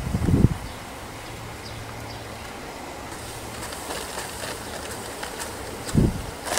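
Handling noise as a netted, potted Cymbidium lure plant is gripped and lifted from beside a clustered honeybee swarm: two dull low thumps, one just after the start and one about six seconds in, with light rustling and ticks between.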